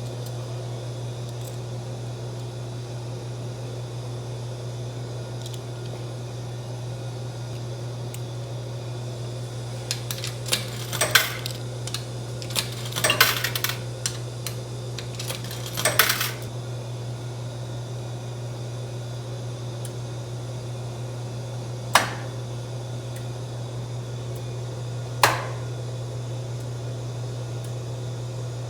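A steady low hum with clinking and clattering of small hard objects: a burst of clatter about ten to sixteen seconds in, then two single sharp clicks.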